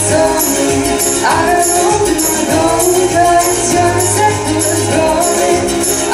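A young woman singing a pop song into an amplified handheld microphone over instrumental accompaniment, with a held bass note and light percussion ticking in a steady beat.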